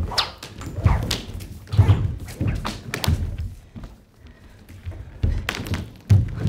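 Dancers' bare feet and bodies thudding on a stage floor as they leap, land and drop, in an irregular run of dull knocks. The heaviest come about two seconds in and near the end.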